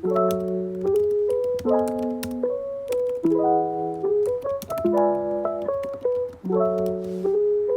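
Lo-fi background music: soft electric piano chords changing about every second and a half, over light clicking percussion.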